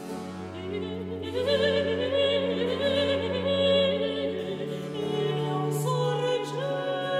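Classical music: an operatic voice singing long notes with vibrato over sustained orchestral accompaniment.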